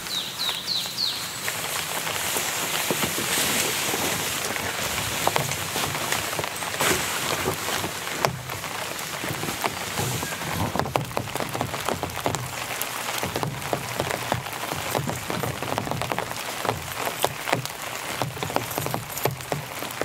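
Steady rain falling in a forest, with many scattered sharp drop sounds striking nearby surfaces. A few short, high chirps sound in the first second.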